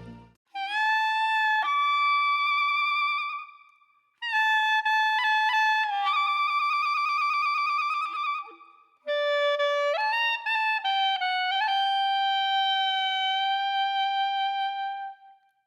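Background music: a solo melody on a single instrument, held notes with slight vibrato, played in three phrases separated by brief pauses.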